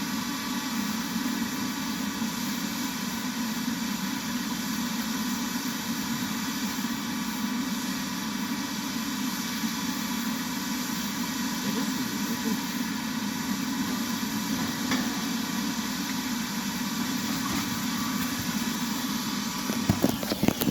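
A forge running steadily with an even, unchanging noise, with a few short knocks about twenty seconds in.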